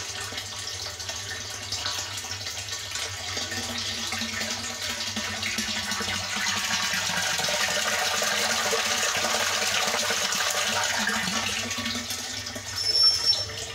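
Water pouring from an inlet pipe into a partly filled storage tank, a steady splashing stream that grows louder through the middle and eases again. A brief high-pitched tone sounds about a second before the end.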